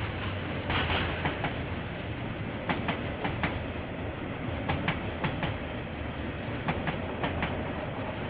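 Train wagons rolling past, their wheels clicking over a rail joint in groups of four about every two seconds, over a steady rumble.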